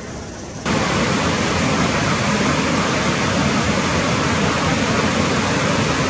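Faint steady background hiss, then about half a second in a much louder, even rushing noise cuts in abruptly and holds steady.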